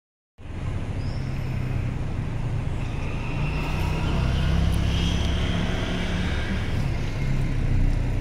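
A road vehicle running steadily while moving, heard as a continuous low rumble with road noise. It cuts in abruptly about half a second in.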